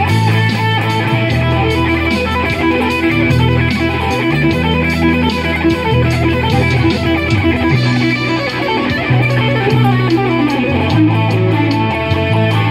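Strat-style electric guitar playing an improvised lead with wavering, vibrato-laden notes over a slow minor-blues backing track with a bass line.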